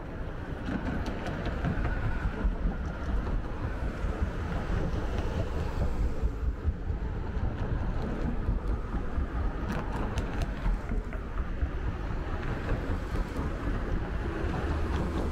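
Steady city road traffic: a continuous low rumble and hiss of passing vehicles.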